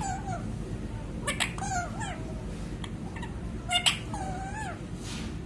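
A pet parrot making three short pitched calls a second or two apart, each starting sharply, rising and then falling, with a cat-like quality.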